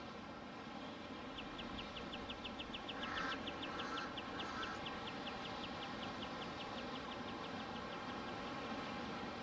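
A wild animal calling: a high, rapid run of short chirps, about five or six a second, that starts about a second in and thins out near the end. A few lower calls come in about three seconds in, over a steady rushing hiss.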